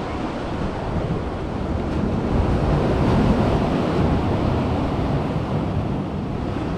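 Sea waves breaking and washing, swelling to a peak about three seconds in and then easing, with wind rumbling on the microphone.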